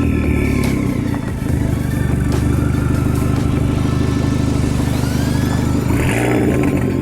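Turbocharged four-cylinder engine of a VW Jetta GLI with a catless, muffler-delete straight-pipe exhaust, running at a steady speed with a loud, even exhaust note. The note briefly dips and picks up again about six seconds in.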